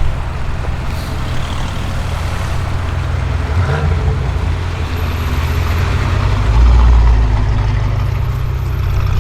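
Audi RS6 C7's twin-turbo V8 running at low revs through a Milltek exhaust, a steady deep drone that swells into a louder low rumble for about a second about two-thirds of the way through.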